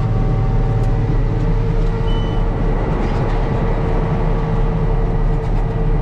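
Case IH 7120 tractor's six-cylinder diesel engine running steadily under load while pulling a planter, a constant low drone.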